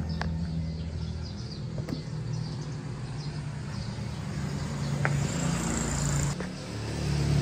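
Steady low hum of an idling engine, with a few light clicks and knocks.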